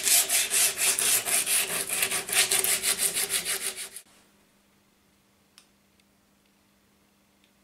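Sandpaper rubbed by hand along the edges of a plywood vase, rounding them over: quick, even back-and-forth strokes, about three or four a second. The rubbing fades out about four seconds in, leaving near silence with one faint tick.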